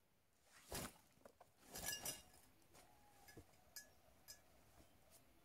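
Rummaging through a backpack: two louder rustles and knocks of gear in the first two seconds, then a few light, ringing clinks of small hard items.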